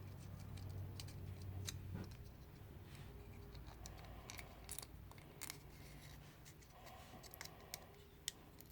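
Faint scattered clicks and light rustles of a folded card pipe being handled, as its chamber insert is fitted into the stem slot and its taped end is pressed down.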